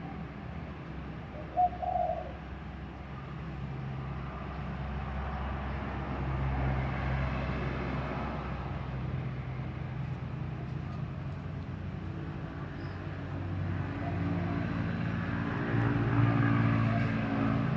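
Mini CNC wood-engraving router running, a steady motor hum with low tones that shift and swell as the machine moves. A short, louder note sounds about two seconds in.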